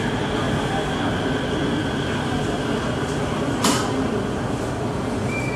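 Steady running noise inside a Japanese-built Bangkok MRT Purple Line train car, a mix of rumble and hiss. A single sharp click comes about two-thirds of the way through, and a short high beep starts just before the end.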